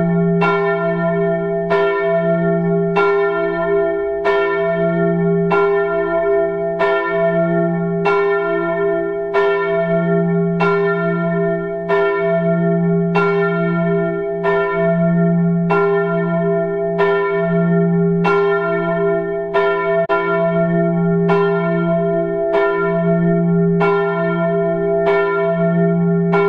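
A bell struck over and over at a steady pace, about once a second, sounding the same note each time, with each stroke still ringing when the next one lands.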